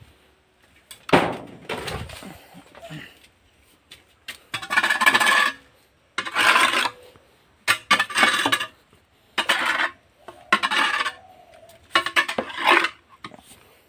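A kodal (a metal hoe) scraping pig-pen waste across the floor in about seven separate strokes, each under a second long, with short pauses between them.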